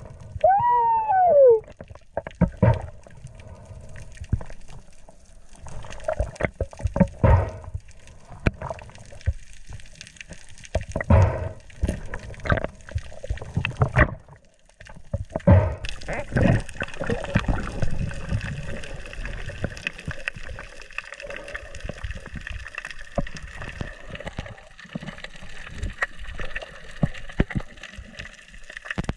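Underwater sound picked up by a diver's camera: gurgling water movement with irregular knocks and thumps, and a short squeak falling in pitch about a second in. From about halfway the knocks thin out and a steady hiss with a faint hum takes over.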